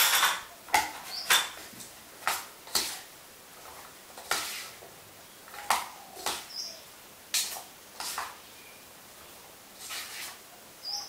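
Metal spoon scraping and knocking against a stainless steel pot, about a dozen irregular strokes, while pumpkin sticks and pumpkin seeds are tossed into a thick batter.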